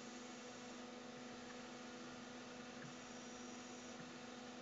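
Steady electrical hum from a windshield wiper motor on an H-bridge servo controller, with a faint high-pitched whine that comes and goes twice for about a second as the motor is driven slowly to a new position.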